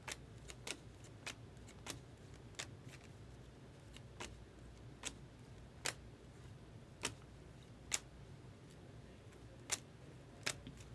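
Baseball trading cards being flipped through one at a time, each card giving a faint, sharp click, about once a second at an uneven pace.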